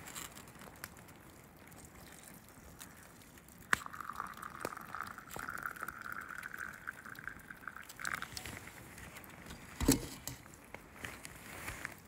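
Hot water poured from a camp-stove pot into a metal mug of conifer needles to brew a needle tea: a steady pouring stream lasting about four seconds. A single thump follows near the end.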